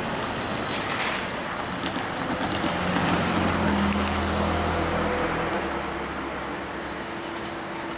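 Road traffic passing close by: one motor vehicle's engine hum swells about three seconds in and fades away by about six seconds, over steady traffic noise.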